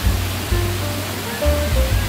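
Background music with deep bass notes and short melody notes, laid over the steady rush of a large waterfall.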